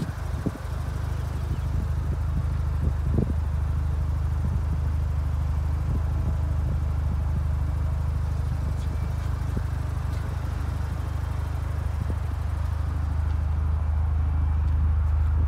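1993 Mazda RX-7's rotary engine idling steadily, a low even drone, with a few light knocks in the first few seconds.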